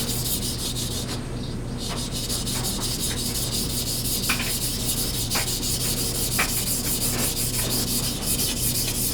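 Paring knife blade ground back and forth on a King 1000-grit water stone in steady scraping strokes, with a brief pause about a second and a half in. The edge is being reprofiled at a very low angle to make it much thinner, which takes more grinding than a normal sharpening.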